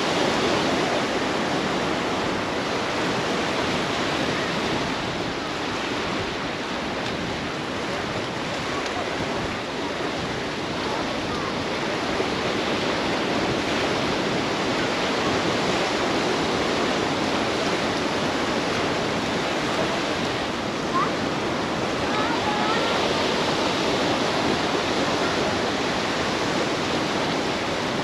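Ocean surf breaking and washing up a sandy beach, a steady, unbroken wash of waves.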